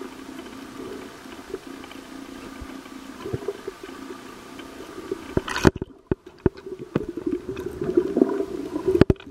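Underwater sound heard through a camera's waterproof housing: muffled water movement with a steady low drone and bubbling. About five and a half seconds in, the hiss drops away suddenly and a run of sharp clicks and knocks follows, with denser bubbling near the end.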